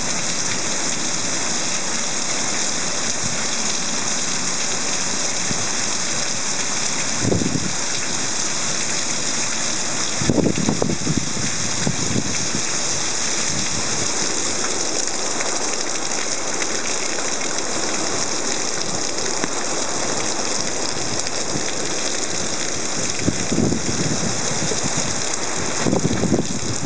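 Heavy rain pouring down in a steady, loud hiss during a thunderstorm, with a few brief louder low rushes about seven seconds in, around ten to twelve seconds, and near the end.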